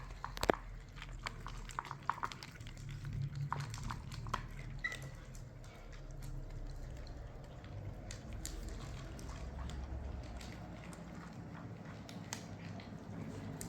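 Kittens eating wet food: wet chewing and lapping, with a run of small clicks in the first few seconds and a brief high squeak about five seconds in.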